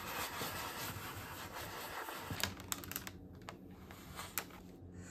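A sheet of printing paper being rubbed by hand against an inked aluminium foil lithography plate to transfer the print, a steady scratchy rubbing. About two and a half seconds in it gives way to scattered crinkly clicks as the paper and foil are handled and the print is peeled off the foil.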